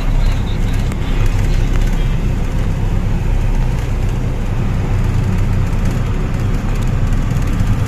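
A truck's engine running steadily with road noise, heard from inside the cab at cruising speed.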